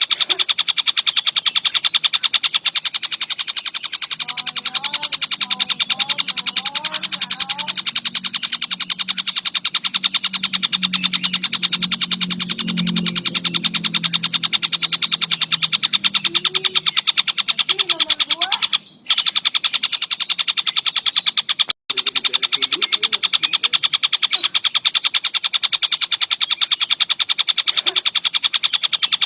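Tengkek buto kingfisher calling without a break: a fast, dense rattling chatter, cut off twice for a moment near the end.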